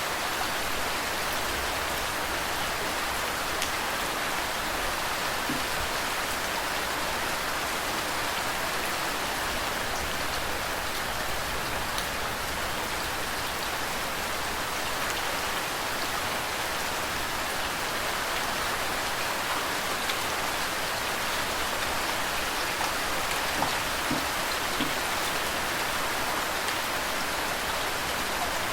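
Steady rain falling, with scattered individual drop ticks, mixed with flowing water.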